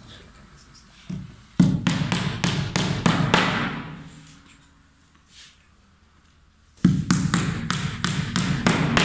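Two runs of quick hammer blows, about four a second. The first starts about a second and a half in and the second about seven seconds in. These are small nails being driven through wooden squares into a CNC router's spoilboard.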